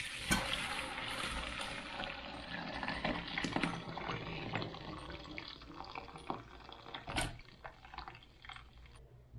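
Fish stock poured from a pot through a wire mesh strainer into a bowl, a steady splashing pour that thins toward the end as the pot empties. A few sharp knocks are heard, the clearest about seven seconds in.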